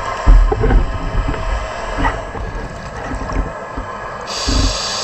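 Scuba diver breathing through a regulator underwater: a bubbly rumble of exhaled air, then a sharp hiss of an inhaled breath near the end.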